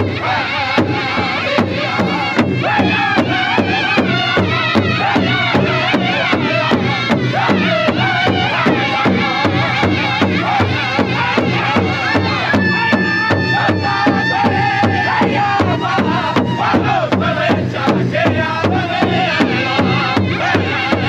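Powwow drum group singing in chorus while striking a large shared hand drum together with padded beaters in a steady, even beat. About twelve seconds in, a high steady tone is held for a couple of seconds over the singing.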